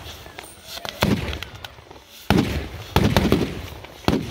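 Firecrackers going off in a string of sharp bangs, about four loud ones roughly a second apart with smaller pops between.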